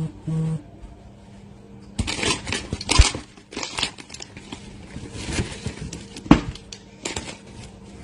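Handling noise of a phone being moved about, its microphone rubbing and scraping in irregular crackling bursts, with sharp knocks about three and six seconds in. Two short low buzzes right at the start.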